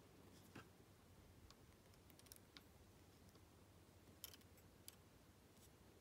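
Faint, irregular metallic ticks and clicks of a short hook pick working the pins of an American 1100 padlock, under tension from an Allen-key tension tool; a sharper tick comes a little past four seconds in.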